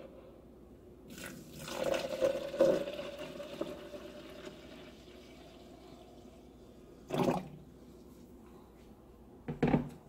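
Water poured into a NutriBullet cup onto dry rolled oats, a rush that is loudest in the first seconds and then tapers off. Two short handling bumps follow, about seven seconds in and just before the end.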